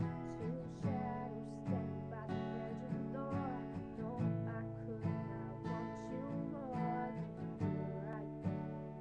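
Acoustic guitar strummed in a steady rhythm, with a voice singing a wavering melody over it for most of the stretch.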